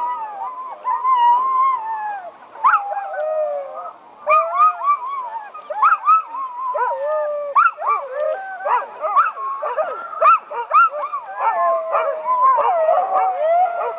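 A chorus of sled dogs howling together, many voices overlapping with rising and falling howls and some yips throughout. The dogs are excited and eager to race.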